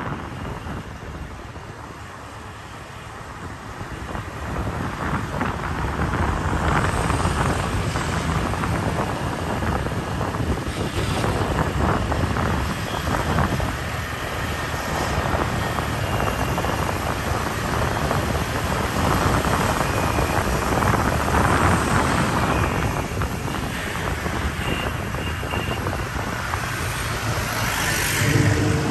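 Wind rushing over the microphone and road noise from an open vehicle riding along a street, with the engine and tyre noise of other traffic around it. The noise drops for a couple of seconds near the start, then picks up and stays steady.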